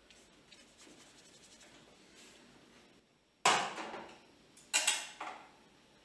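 Faint scratching of a paintbrush working oil paint on paper. A little past halfway comes a sudden louder noise that dies away over most of a second, then a second, double noise about a second later.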